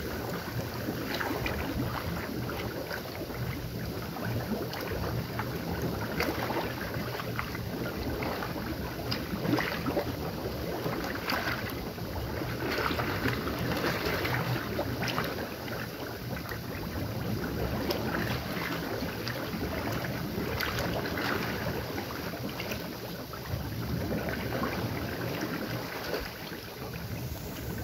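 Sulphur spring bubbling up hard: rust-brown water churning and gurgling with a steady rush and irregular splashes. This is the active phase of a spring that boils up for about ten minutes and then subsides for ten.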